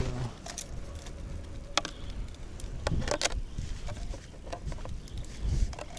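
Scattered small clicks and ticks from a winter tip-up being handled and set over an ice hole: its plastic flag and reel knocking as the line is arranged. Underneath is a steady low wind rumble on the microphone.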